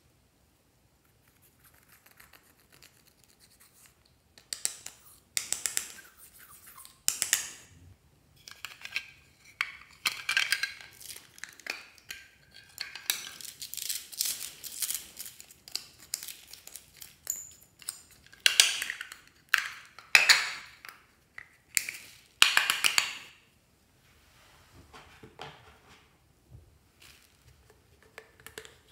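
Small plastic items being handled: a run of short crackling, rattling and clicking bursts from makeup compacts and plastic packets, with foam beads tipped out of a plastic bag into a glass dish of slime. The handling comes in separate bursts, busiest in the middle and quieter near the end.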